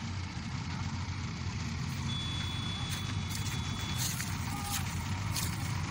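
Diesel engines of JCB backhoe loaders running steadily at a distance as a low rumble. A steady high-pitched tone sounds for about two seconds midway.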